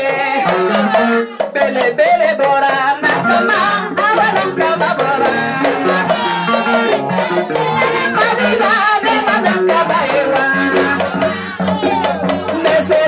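Amplified music: a woman singing through a microphone over steady percussion with a rattling, shaker-like beat.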